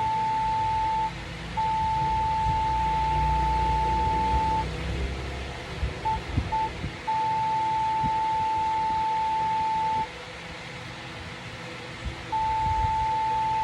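Morse code sent as a steady single-pitched tone keyed on and off at a very slow pace: long dashes of about three seconds each, with two short dots about six seconds in and pauses between the characters.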